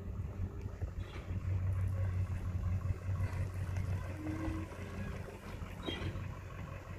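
A vehicle engine idling: a steady low hum that grows a little fainter in the second half.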